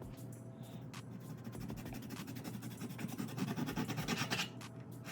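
Kitchen knife sawing back and forth through tough pork skin on a cutting board, a fast rasping scrape that grows louder toward the middle and stops near the end; the knife is struggling to get through the skin.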